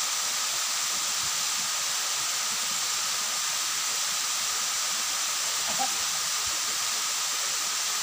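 Chibok Dare waterfall, water pouring down the rock face into its plunge pool: a steady, even rush with no let-up.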